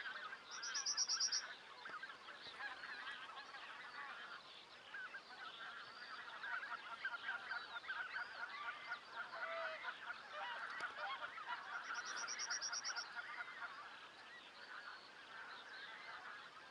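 A large flock of geese calling continuously, a dense chorus of many overlapping honks and cackles, as the birds come in to land in the field.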